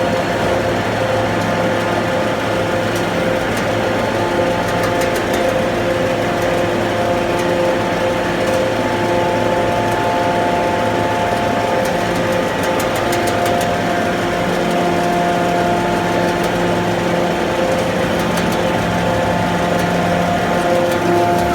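Induction billet-heating furnace line running: a steady industrial machine noise with several constant hum tones and faint scattered ticks.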